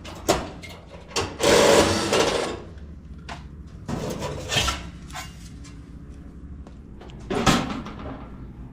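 Clicks, knocks and a scraping rustle of dryer parts being handled during a teardown, with the loudest scrape about two seconds in.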